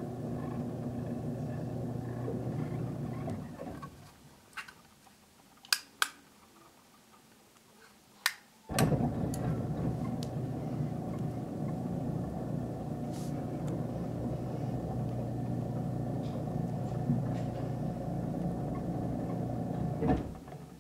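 Garage door opener with an AC motor, heard through the floor from the room above, running with a steady, fairly quiet hum. It stops a few seconds in; after a pause broken by a few sharp clicks it starts again at about nine seconds and runs until just before the end.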